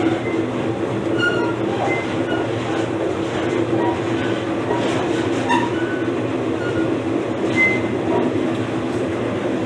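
Passenger train rolling along the track, heard from aboard a coach: a steady rumble of wheels on rail, with brief high squeaks here and there.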